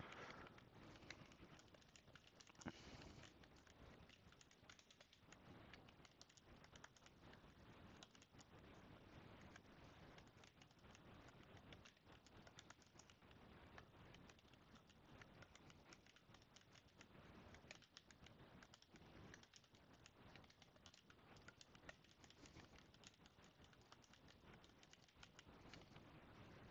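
Faint, irregular keystrokes on a computer keyboard, typing in short runs of clicks.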